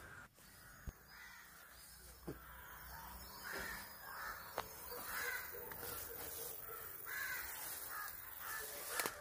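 Crows cawing faintly and repeatedly from about three and a half seconds in, with a few sharp clicks.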